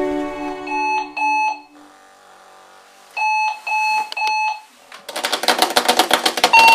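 Sonic Alert Sonic Bomb alarm clock going off: short electronic beeps, two and then three, followed about five seconds in by a loud, rapid pulsing buzz, with beeping starting again at the end.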